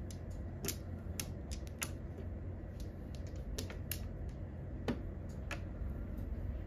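Mahjong tiles clacking as players draw and discard them on an automatic mahjong table: a dozen or so sharp clicks at irregular intervals over a steady low hum.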